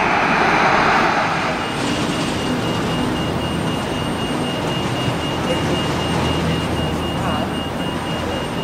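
Boeing 737 jet engines at takeoff thrust, a loud roar that cuts off abruptly about a second and a half in. After it comes a quieter, steady background with a thin high whine and a low hum.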